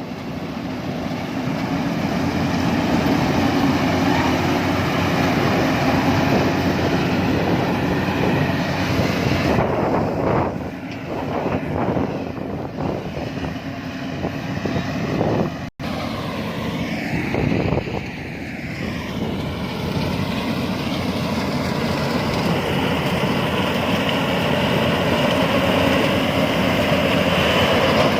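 Diesel engine of heavy farm machinery, a combine harvester or tractor, running steadily under work, with a brief dropout a little past halfway.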